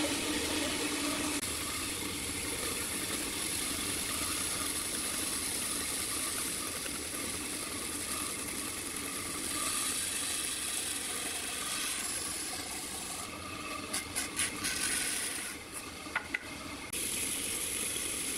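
Band saw running, its blade cutting through a thick pine board with a steady hissing rasp. Near the end the cutting hiss drops away for a few seconds, with a few sharp clicks, then resumes.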